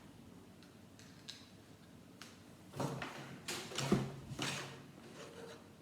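Lego plastic pieces being handled and pressed onto a baseplate: a couple of small clicks, then a cluster of plastic knocks and rustling from about three to four and a half seconds in.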